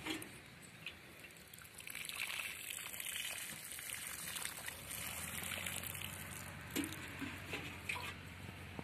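Water pouring from a galvanized metal watering can's spout onto soil at the base of a tomato seedling: a steady trickle that grows louder about two seconds in. A few short knocks come near the end.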